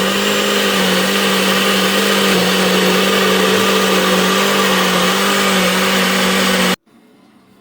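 Electric blender running at one steady speed, blending blackberries with milk into a milkshake, then switched off and cutting out suddenly near the end.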